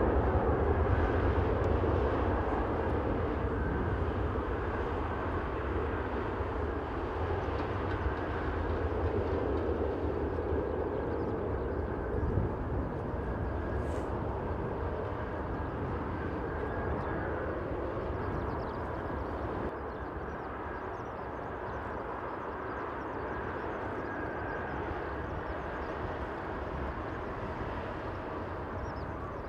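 Airbus A380-841 taxiing on its four Rolls-Royce Trent 970 turbofans at low thrust: a steady jet rumble that slowly grows fainter.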